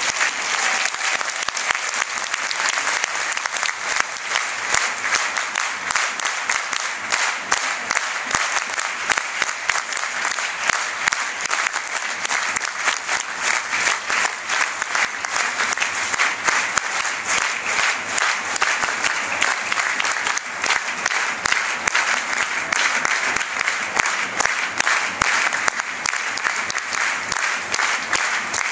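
Football supporters in the stand clapping, dense continuous applause from many hands with no break.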